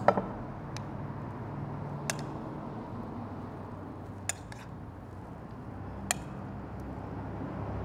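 A spoon scooping pico de gallo out of a ceramic bowl onto tacos, clinking against the dishes four times in short sharp taps over a low steady hum.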